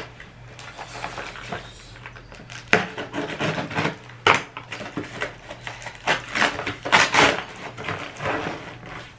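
A brown kraft paper mailer being cut and torn open by hand: a run of irregular scratchy rustles and rips, the sharpest about four seconds in and again near seven seconds.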